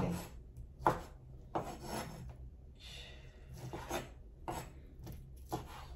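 Kitchen knife cutting raw pork on a wooden cutting board: scraping, sawing strokes through the meat and about half a dozen sharp knocks of the blade on the board at uneven intervals.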